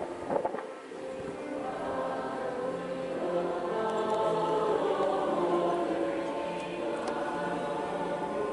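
A choir singing a school song with instrumental accompaniment, in long held notes. This is the winning school's song, played after the game.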